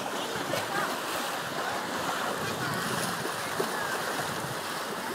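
Sea water washing against shoreline rocks and driftwood, a steady rushing, with some wind on the microphone.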